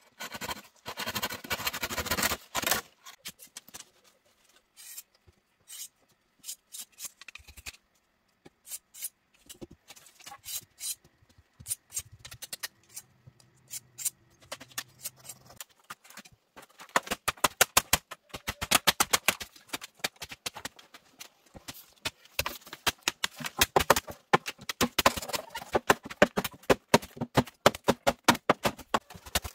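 Machete working green bamboo: a few seconds of scraping and cutting at the start, then scattered sharp taps, then a long run of rapid knocks and clicks as the bamboo is chopped and split.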